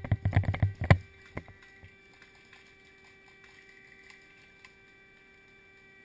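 A quick flurry of irregular knocks and thumps in the first second, then a low steady background with a faint hum.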